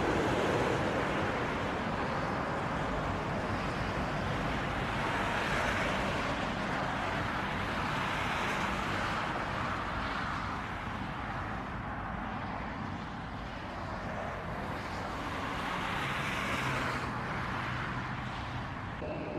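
Boeing 787 Dreamliner on final approach, its jet engines making a steady rushing noise that swells and eases a little.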